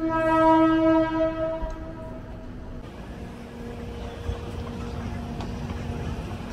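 A train horn sounds once, one steady loud note lasting about two seconds, then fades. A quieter steady hum follows.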